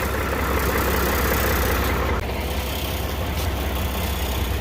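Old Mack tree-length log truck's diesel engine running at idle with a steady low drone. A higher rushing layer above it drops away about two seconds in.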